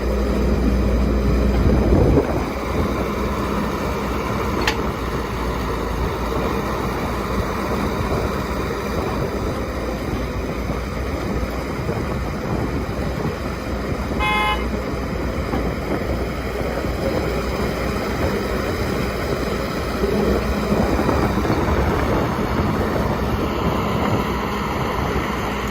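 Diesel engines of an excavator and dump trucks running steadily at a construction site, with a short horn toot about halfway through.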